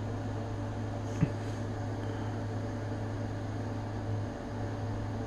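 Steady low electrical hum with a faint even hiss, like an appliance or fan running in the room, and one small click about a second in.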